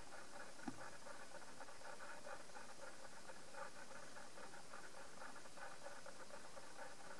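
Steady faint background hum and hiss with no distinct event, apart from one soft click about a second in.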